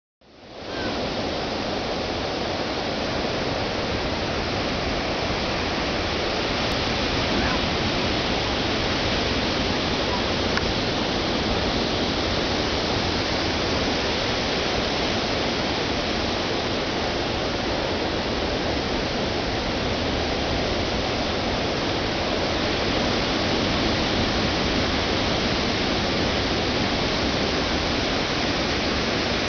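Ocean surf breaking on a sandy beach: a steady, even rushing roar that fades in over the first second.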